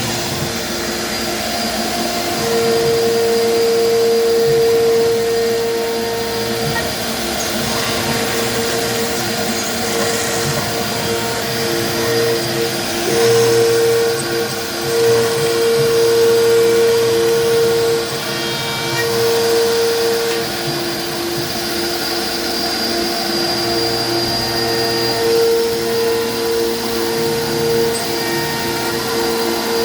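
CNC router spindle at 15,000 RPM driving a two-flute upcut bit through polycarbonate panels: a loud, steady machine noise. Over it a humming tone switches on and off in stretches of several seconds as the machine moves from cut to cut.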